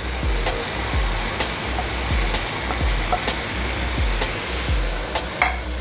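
Chicken breasts sizzling in lemon juice in a hot cast iron skillet: a steady frying hiss with scattered crackles and pops.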